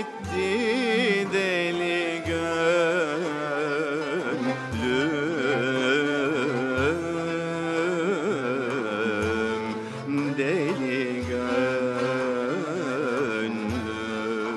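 Turkish classical music in the Neveser makam: a heavily ornamented melody with wide vibrato over a low drum stroke about every two seconds.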